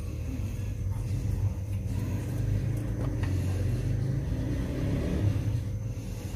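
Steady low rumble with a faint constant hum over it, with no clear events.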